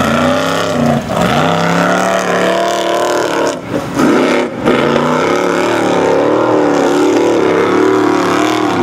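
Formula Offroad unlimited-class buggy's engine revving hard as it claws up a steep sand hill. The pitch rises and falls with the throttle and dips briefly about a second in and twice more around three and a half to four and a half seconds in.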